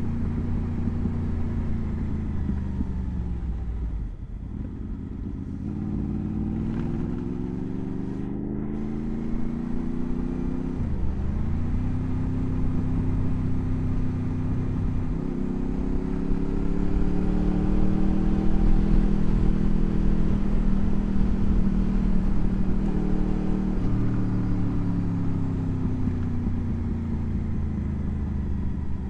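Motorcycle engine under way, falling in pitch as the throttle closes at first, then pulling up in revs, dipping sharply at a gear change about eleven seconds in and rising again, before easing off gradually toward the end.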